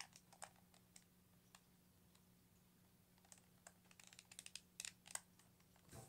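Faint plastic clicks and rattles of a 2x2 Rubik's Cube being turned and handled: a few at the start, then a quick cluster of clicks past the middle.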